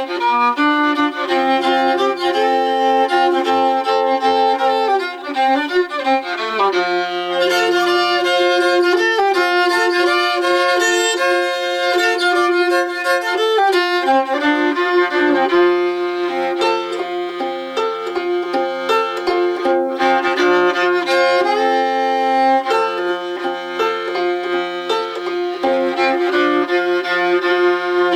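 Homemade box fiddle bowed with a homemade bow, playing an old-time fiddle tune in calico cross-tuning tuned down about two steps. The melody runs in double stops, with a low string droning under it from about six seconds in.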